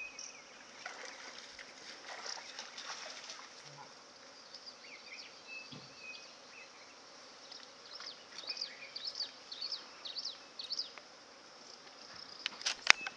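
Wild outdoor ambience carried by a steady high insect buzz. Quick high chirps cluster in the second half, and a few sharp clicks near the end are the loudest sounds.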